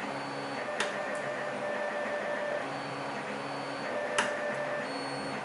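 Printer running, its steady motor tones stopping and starting every second or two. Two sharp clicks cut through, one about a second in and a louder one near the end.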